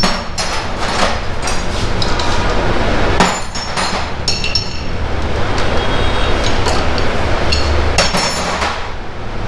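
Metal tools clinking and knocking in irregular sharp strikes, over a steady low rumble.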